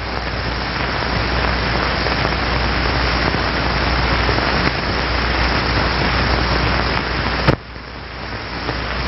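Steady rushing hiss of moving air from the smoke-flow apparatus, with a low hum underneath. A sharp click comes about seven and a half seconds in, after which the rushing carries on quieter.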